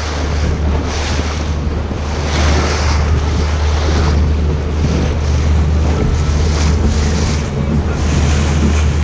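Motorboat running at speed: a steady low engine drone under the rush of water along the hull, the splash swelling in surges about once a second as it cuts through small waves, with heavy wind buffeting on the microphone.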